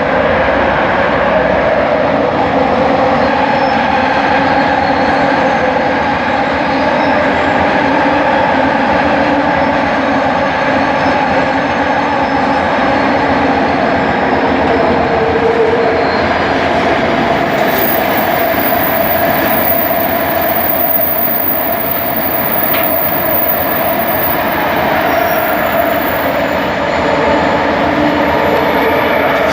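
Bombardier Innovia ART 200 light-metro train running, heard from on board: steady loud running noise with a humming motor tone that drifts slightly in pitch. The title calls this train's motor noise weird.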